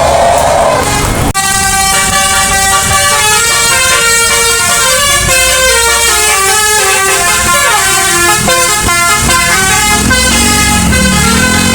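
A bus's musical telolet basuri horn playing a quick tune of stepped notes, starting abruptly about a second in. Lower wavering notes join near the end.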